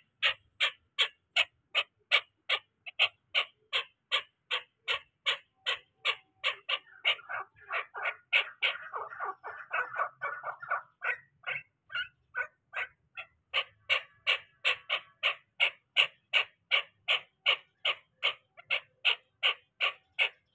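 Chukar partridge calling: a steady run of short, sharp notes about three a second, breaking into a faster, lower chatter for a few seconds in the middle.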